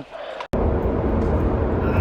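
About half a second of faint sound, then a sudden cut to steady, loud road noise of a car driving, strongest in the low, deep range.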